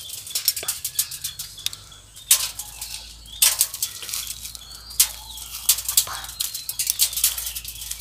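Dry seed pods of a garden plant bursting open and flinging their seeds onto a corrugated metal roof sheet: irregular sharp cracks and ticks, with a few louder ones around the middle.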